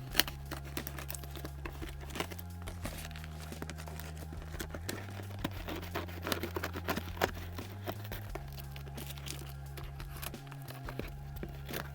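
A cardboard shipping box being opened by hand: packaging tearing, with quick crinkling rustles and clicks.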